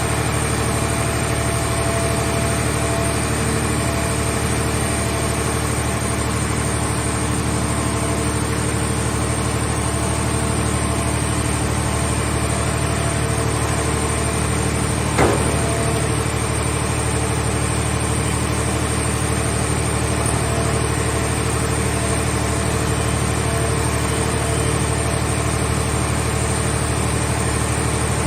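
Hydraulic car-body baler's power unit running steadily, with one sharp clank about halfway through.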